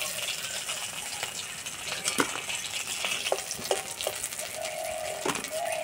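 Oil sizzling in an iron kadai as pieces of a fried flour snack finish frying, with a metal spatula clicking and scraping against the pan. Two short squeaks near the end.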